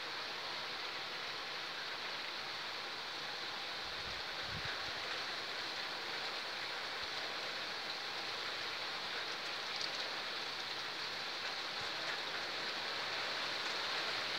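Heavy rain pouring steadily, a dense even hiss of rain on surfaces that grows slightly louder toward the end, with a brief low thump about four seconds in.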